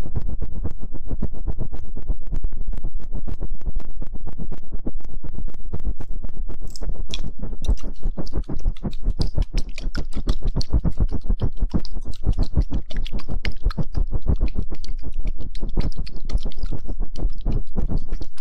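Fingers scratching and rubbing directly on a microphone, many quick strokes a second, close and loud with heavy bass.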